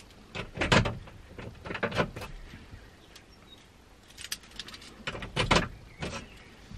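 A bunch of keys jangling and clicking as they are handled, with a few separate sharper clicks and rustles, the loudest about a second in and near the end.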